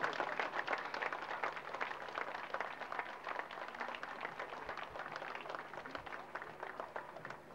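A large crowd applauding, a dense patter of many hands clapping that is loudest at the start and gradually dies away.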